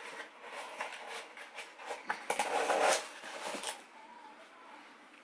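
Cardboard pizza boxes being handled and moved: a run of rustles and light knocks, loudest about two to three seconds in, then faint handling.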